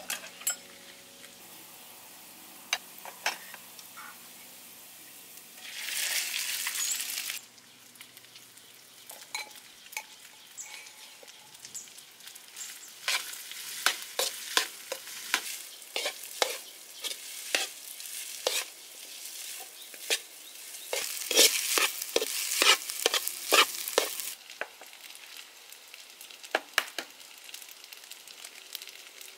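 Rice frying in a wok. There is a loud burst of sizzling about six seconds in, then a spatula scrapes and clacks against the wok many times over about ten seconds, and the sound turns quieter near the end.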